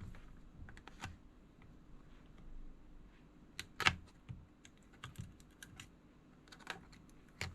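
Irregular light clicks and taps from hands working small electronic devices and tools on a repair bench, with a sharper knock about four seconds in.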